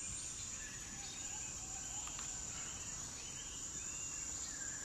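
Rainforest insects droning steadily on one high note, with a few faint short chirps from other animals over it.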